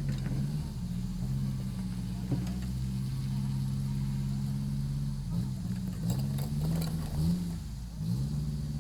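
Motor vehicle engine running, steady at first, then its pitch dips and rises several times in the second half.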